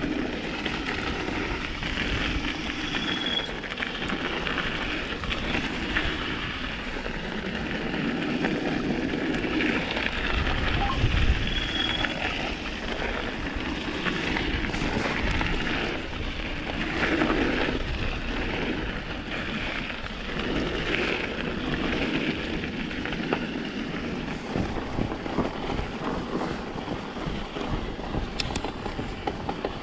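Mountain bike riding down a frozen trail, heard up close from a chest-mounted action camera: steady tyre noise on the dirt, with wind on the microphone and frequent small clatters and knocks from the bike over bumps.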